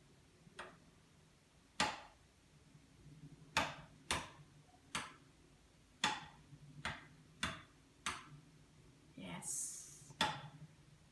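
A series of about ten sharp clicks or knocks at uneven intervals, with a brief hiss about nine and a half seconds in.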